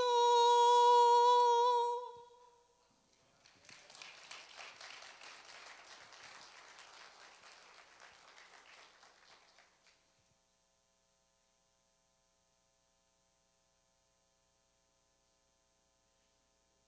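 A solo woman's voice holds the last sung note, 'soul', for about two seconds and cuts off. About a second later the congregation claps for some six seconds, the applause slowly dying away.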